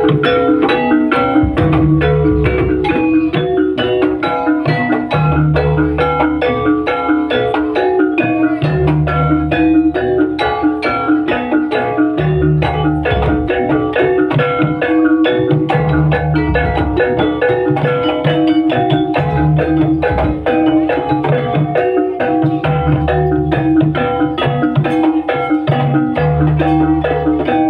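Javanese gamelan music for a jaranan dance: metallophones struck in a fast running pattern over deep beats that recur every few seconds, loud and continuous.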